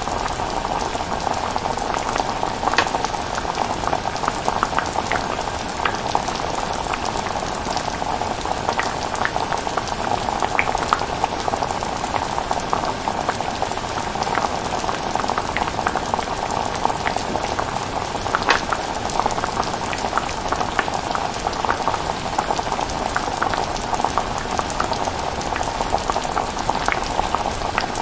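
Pot of chilli bubbling on the stove: a steady simmering hiss with many small pops scattered throughout.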